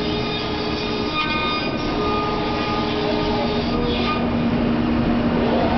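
Komo CNC router running: a steady machine drone with several held tones, some of which drop out and come back.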